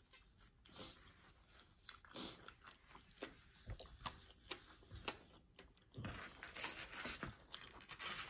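Close-up chewing and crunching of pizza, with small wet mouth clicks. About six seconds in, a louder, denser run of crunching and handling noise starts as food is picked up from the cardboard box.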